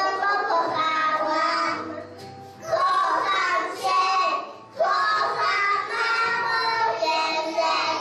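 A group of young children singing a song together over musical accompaniment, in phrases with short breaks between them.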